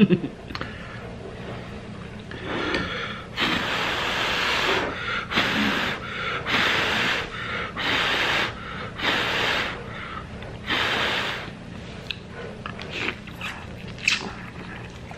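Noodles being slurped into the mouth, about six loud, hissy slurps, each up to a second long, with short pauses between. They stop about twelve seconds in.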